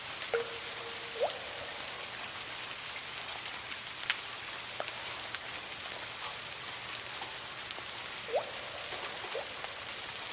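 Steady hiss of soft rain with a few water drops plinking into water, each a short note that rises in pitch: one just after the start, one about a second in, and two near the end.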